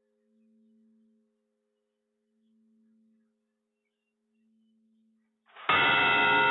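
A bell's fading hum, wavering slowly about every two seconds, then a loud new strike about five and a half seconds in that rings on with many overtones.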